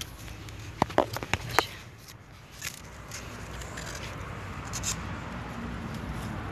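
Arugula being picked by hand: a quick run of sharp snaps about a second in, then faint rustling of leaves over a steady outdoor background noise.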